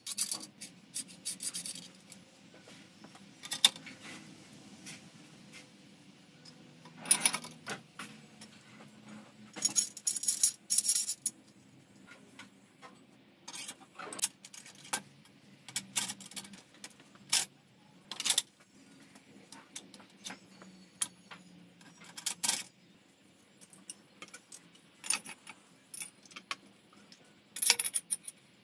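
Stainless steel square-tube parts of a home-built motorcycle tire changer being fitted together by hand: irregular metal clicks, clanks and short scrapes as the arm and bar are slid into place and tightened.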